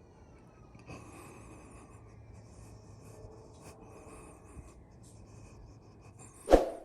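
Faint background hiss with high chirping, then near the end one sudden loud air rifle shot from an FX Impact .30 calibre PCP air rifle that dies away quickly and cuts off abruptly.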